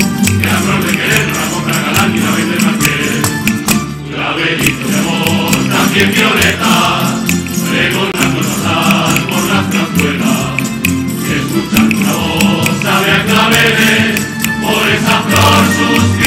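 A tuna's male chorus singing together to strummed Spanish guitars, lutes and a double bass, with a brief drop in the music about four seconds in.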